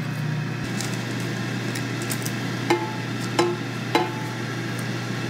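Ninja air fryer preheating, its fan giving a steady hum, while a metal ice cream scoop clicks and taps several times as portions of sardine mixture are scooped and dropped into a parchment-lined basket; the clearest clicks come in the middle.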